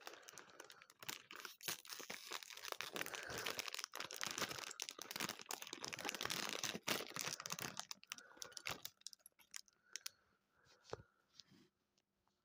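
Plastic foil LEGO Minifigures blind bag being torn open and crinkled by hand: a dense, crackling rustle of foil, dying down after about eight seconds to fainter scattered rustles and clicks.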